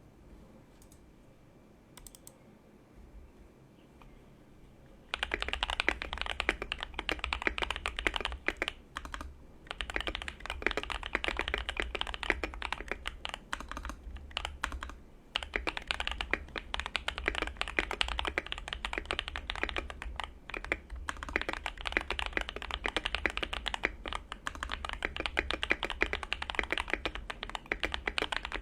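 Keychron Q2 mechanical keyboard, a solid aluminium gasket-mount board, being typed on quickly and continuously. After a few faint clicks, the typing starts about five seconds in and runs with a couple of brief pauses.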